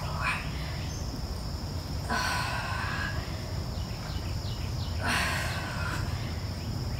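A woman's forceful exhales, twice about three seconds apart, in time with twisting crunch reps. Underneath is a steady outdoor background of a thin high buzz and a low rumble.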